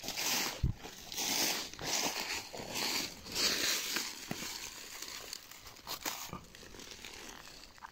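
Footsteps crunching and rustling through dry fallen leaves, with brushing against low undergrowth: a crunch roughly every second, louder in the first half and growing fainter later on.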